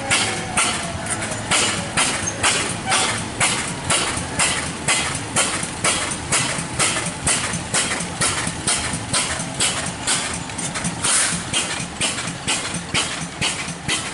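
A bell clanging in a steady rhythm, about two strikes a second, over the low idle of slow-moving fire-truck engines.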